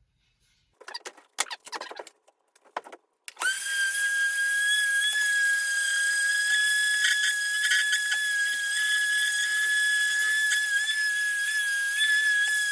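Handling clicks and scrapes, then about three seconds in a small high-speed power tool switches on and runs with a steady high-pitched whine.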